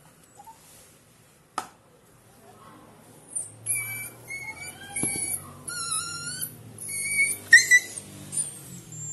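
Dog whining in a string of high-pitched, wavering whimpers from about three seconds in, the loudest near the end, as tumbu fly (Cordylobia) larvae are squeezed out of boils in its skin. A single sharp click comes about a second and a half in.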